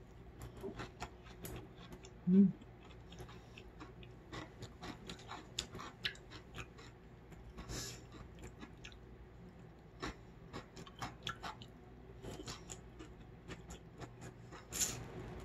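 Close-miked chewing of cold noodles in broth, with many small wet clicks and crunches. A short low hummed "mm" comes about two seconds in, and a noisy slurp of noodles comes near the end.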